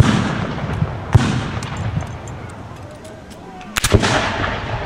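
Black-powder gunfire: a shot at the start, another about a second in, and two close together near the end, each with a long echoing tail.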